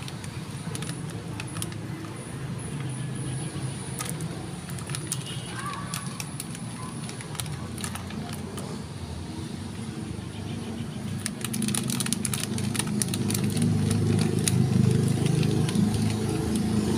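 Low outdoor rumble of road traffic that grows louder about eleven seconds in, as of a vehicle passing, with scattered crackles of a crinkled snack bag.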